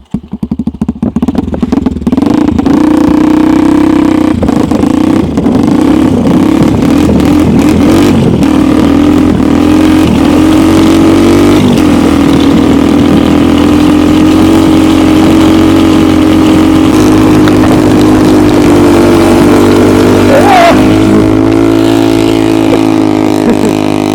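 Homemade snowmobile's engine running loud as it drives off, uneven for the first two seconds, then holding a steady note, with a brief rising sound about twenty seconds in.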